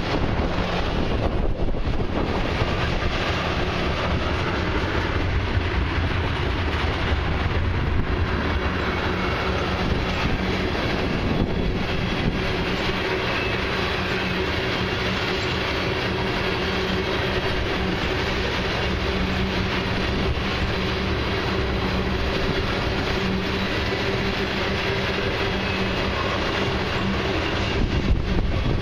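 Loaded ethanol tank cars of a long freight train rolling past, their steel wheels running steadily over the rails with a clickety-clack and a faint steady hum underneath.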